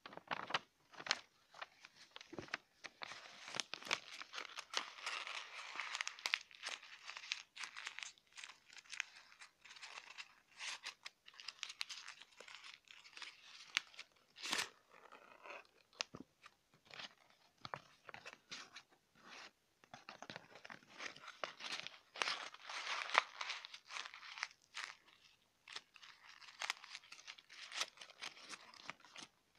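A sheet of paper being crumpled and scrunched by hand close to the microphone: dense, irregular crackling and crinkling that keeps going, with a few sharper snaps.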